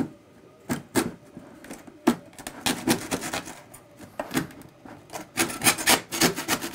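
A serrated bread knife sawing down through the thin printed PLA hair strands of a large 3D print, cutting them free of the sacrificial wall. It makes uneven rasping strokes, a few spread out at first, then quick and close together in the second half.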